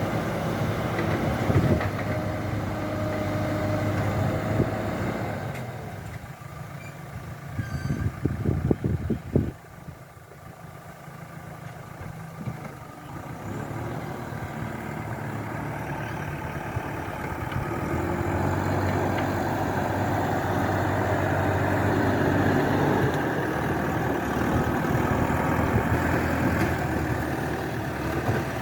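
An engine running steadily, with a cluster of knocks about eight seconds in. The engine drops away for several seconds, then comes back and runs louder.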